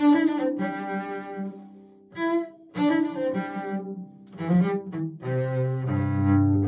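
Cello playing a slow melody in short bowed phrases separated by brief pauses, with deep low notes held from about five seconds in.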